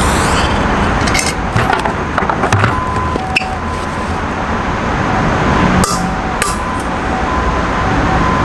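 A lit firecracker being shut inside a foam-wrapped bin: scattered knocks and clicks as the lid is closed and pressed down, with a deeper thump from closing it, over steady traffic hum. The firecracker has not gone off yet.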